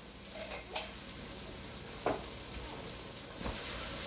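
Chopped onions, carrots, celery and tomato paste sizzling steadily in a Dutch oven as diced tomatoes go in and are stirred, with three short knocks of the can and a wooden spoon against the pot.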